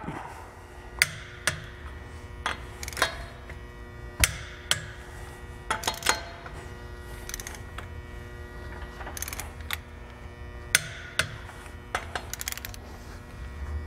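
Click-type torque wrench set to 76 tightening a car wheel's lug nuts: sharp clicks at uneven intervals as the wrench works the nuts and reaches its set torque. A steady electrical hum runs underneath.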